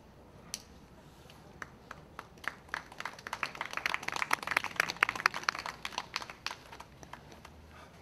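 Audience applause: a few scattered claps that swell into a short burst of clapping in the middle, then thin out again.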